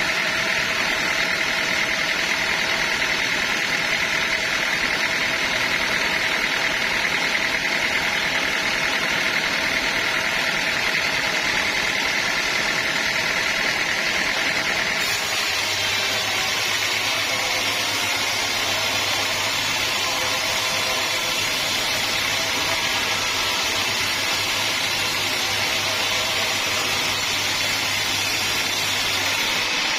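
Sawmill machinery running steadily, with no speech. About halfway through the sound changes abruptly and a low steady hum comes in.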